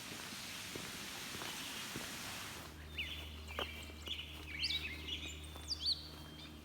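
Small songbirds chirping outdoors: a scatter of short, quick up-and-down chirps over several seconds, over a faint steady low hum. The first couple of seconds hold only a soft hiss with a few light ticks.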